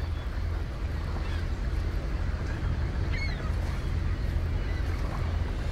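Harbour ambience: the steady low rumble of a boat engine under a haze of noise, with a few faint high calls about three seconds in.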